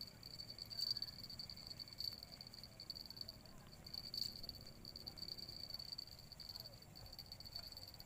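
Insects shrilling in a steady high-pitched drone, with a few faint short clicks about one, two and four seconds in.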